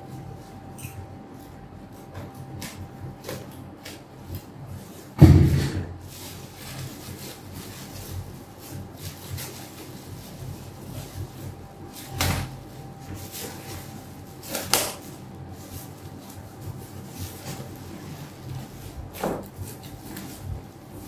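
Clear plastic bag rustling and crinkling as a boxed air fryer wrapped in it is handled and unwrapped, with one loud thump about five seconds in and a few lighter knocks later.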